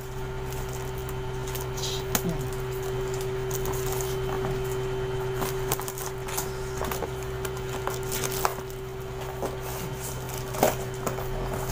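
Unpacking a boxed portable laptop table: scattered rustles, scrapes and sharp clicks of the carton, carry strap and wrapping being handled and opened, with the sharpest clicks about two, eight and ten seconds in. A steady hum with one constant tone runs underneath.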